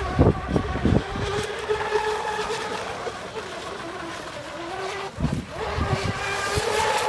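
Brushless electric motor of an RC speedboat (Leopard 4074 2200KV on a 4S LiPo, driving a flex shaft and metal prop) whining steadily at speed, its pitch dipping briefly about five seconds in and then coming back a little higher. Low rumbles come near the start and again about five seconds in.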